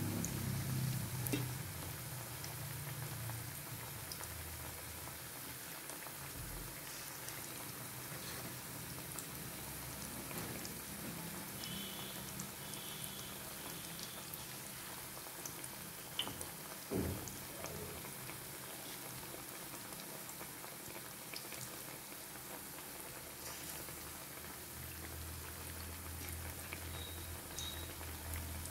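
Hot oil sizzling steadily in a kadhai as besan-battered potato slices deep-fry into pakoras. There are a couple of short knocks about sixteen to seventeen seconds in.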